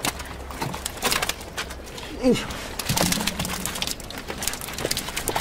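Live carp being tipped out of a net trap and flopping and slapping on wet boards. It comes through as a run of irregular wet slaps and knocks, with water splashing and dripping.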